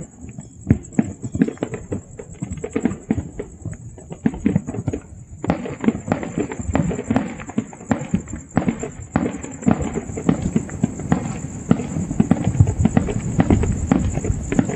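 Many distant fireworks and firecrackers going off across a city in a continuous, irregular crackle of pops and bangs, growing denser about five and a half seconds in.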